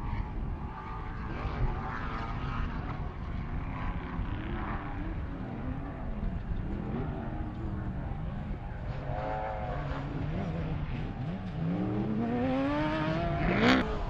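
Off-road race vehicle engines revving over a steady low rumble, their pitch repeatedly rising and falling as they accelerate and back off. Near the end one engine revs up hard in a long rising climb.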